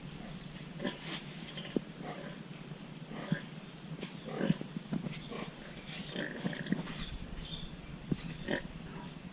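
A pig grunting in short, separate grunts scattered through, with a few sharp clicks among them.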